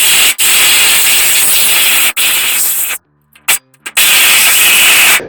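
Jigsaw with a metal-cutting blade sawing through the sheet-steel back of a toolbox drawer. It cuts for about three seconds, stops for about a second, then cuts again until near the end.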